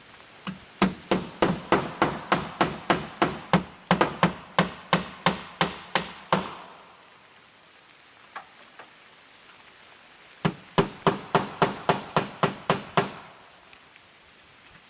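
Hammer driving nails in two runs of quick, even blows, about three a second, the second run shorter than the first, as aluminum fascia trim is nailed up.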